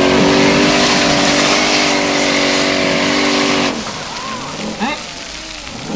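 Formula Offroad buggy's engine held flat out at steady high revs while its spinning tyres spray loose gravel on a steep hill climb. About two-thirds of the way through the throttle is cut and the engine drops away, followed by a couple of short throttle blips as the buggy loses its grip and tips on the slope.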